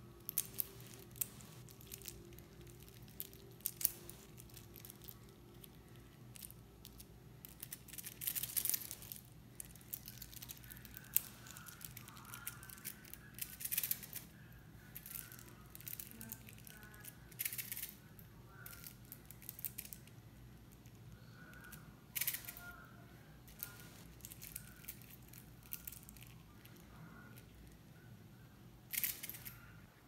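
Metal watch bracelet with a hidden deployant clasp being shaken and flexed by hand: the links clink and rattle in short bursts, with sharp clicks as the clasp snaps open. The clasp will not stay latched because its small gripping tabs do not protrude far enough.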